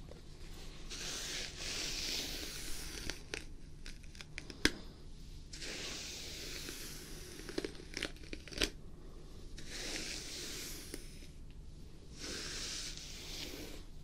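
A brush drawn through long hair close to a binaural microphone, in slow hissing strokes a second or two long, with a few sharp clicks in between.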